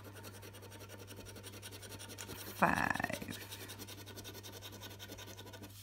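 A metal coin scraping the silver latex coating off a paper scratch card in quick, continuous rubbing strokes. Briefly, about two and a half seconds in, a short voice sound rises over the scratching, louder than it.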